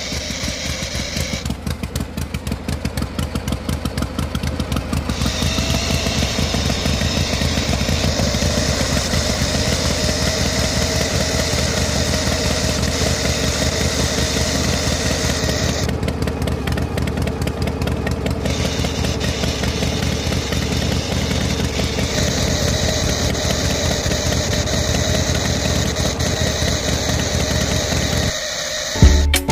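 Miniature model tractor running steadily, with a fast, even pulsing hum, as it drives a belt-driven toy juice machine.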